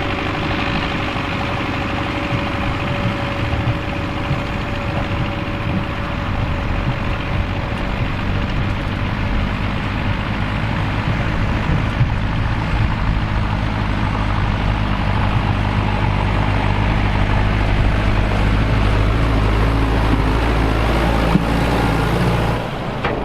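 Fiat 110-90DT tractor's diesel engine running steadily under load, getting a little louder over the course of the sound before it drops off abruptly near the end.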